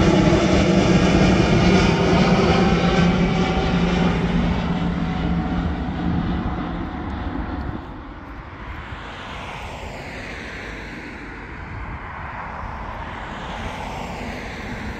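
Jet airliner climbing away after takeoff, its engines loud with a steady low drone at first, then fading about eight seconds in to a fainter, distant sound.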